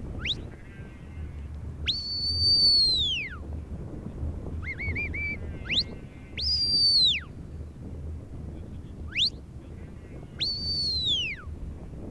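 Sheepdog handler's whistle commands to a working border collie: short rising whistles alternating with three long, loud held notes that fall away at the end, and a quick run of short warbled notes about four and a half seconds in.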